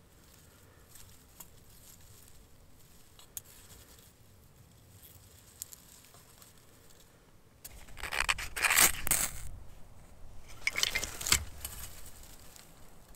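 Dry curled wood shavings rustling softly as they are arranged on a small metal stove grate, then two loud scraping strikes a little over halfway through, with the shavings catching fire.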